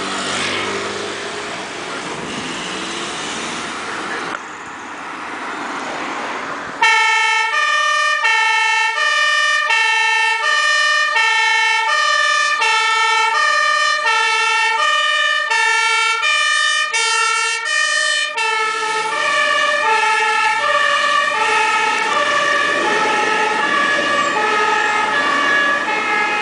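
Street traffic passing at first, then from about seven seconds in a fire engine's two-tone siren switching between a high and a low pitch, each held about half a second. From about eighteen seconds a second two-tone pattern overlaps out of step, with engine rumble underneath.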